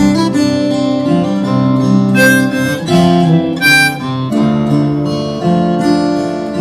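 Diatonic harmonica in C playing a melody in held notes over an acoustic guitar backing track.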